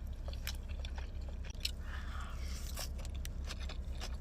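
A person chewing food close to the microphone: scattered wet mouth clicks and smacks over a steady low hum.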